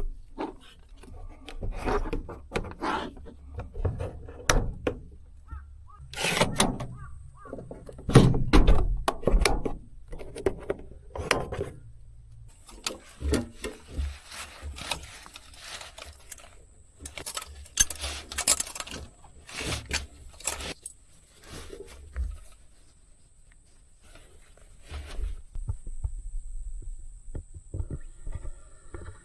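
Irregular knocks, clatter and rustling of camping gear being handled and packed away. A faint steady high-pitched tone comes in about halfway through.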